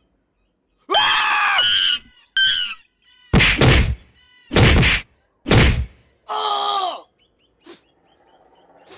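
A scuffle with about six loud cries, groans and whacking hits in quick succession, stopping about seven seconds in. It sounds like a man being attacked by a large ape.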